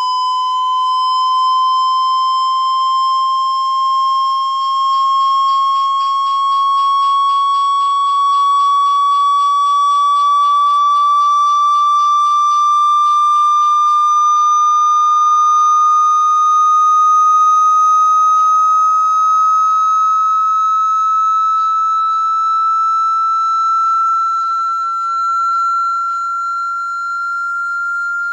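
Phone speaker water-eject tone: one loud, steady tone that rises slowly in pitch throughout, swelling gently about every second and a half. It is played to shake water out of a phone speaker. Faint rapid ticking sits under it for several seconds in the first half.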